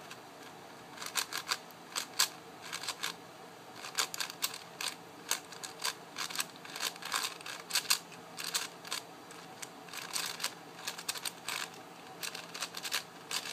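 ShengShou 5x5x5 speed cube being turned by hand, new out of the box: quick, irregular plastic clicks and clacks as its layers snap round, several a second.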